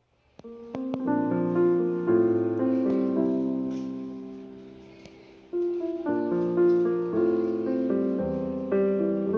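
Piano music, held notes and chords, coming in about half a second in; the sound dies away past the middle and a new phrase begins.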